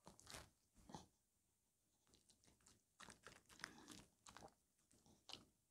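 Faint, irregular chewing and mouth-smacking from a Maltese dog eating strawberry.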